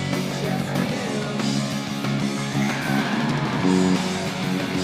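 Peavey Millennium 4 electric bass guitar played fingerstyle, a steady run of plucked notes, heard with backing music.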